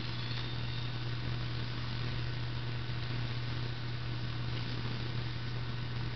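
A steady low hum over an even hiss.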